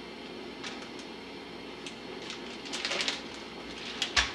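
Plastic zip-top bag crinkling and rustling as it is squeezed and sealed, with a sharp knock near the end.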